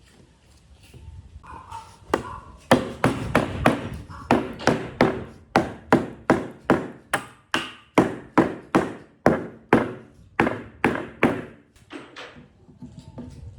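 A rapid series of about twenty hammer blows, two to three a second, each with a short ringing ping; the blows stop shortly before the end.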